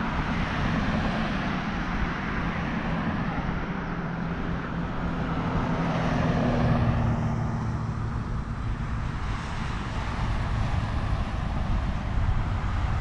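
Cars passing on a road: a steady rush of tyres and engines that swells about six seconds in.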